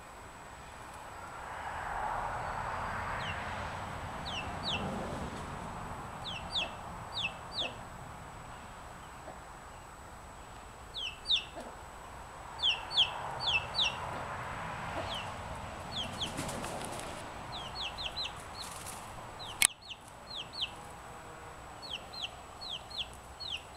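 A young chicken chick peeping: short, high, falling peeps in quick runs of two to four, repeated throughout. A single sharp click sounds about three-quarters of the way through.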